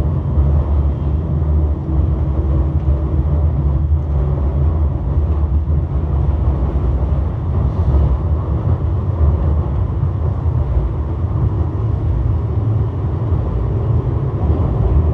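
Metro Sul do Tejo light-rail tram heard from inside while it runs along the line: a steady low rumble from the wheels and running gear.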